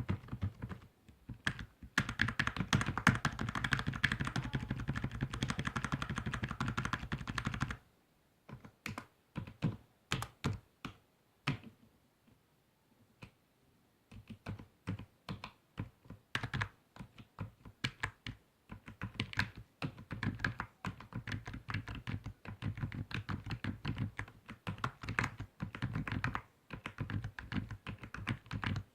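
Typing on a computer keyboard, with clicking keystrokes. A fast, dense run of keys lasts several seconds, then comes a few scattered presses and a pause of about two seconds, and then steady typing resumes.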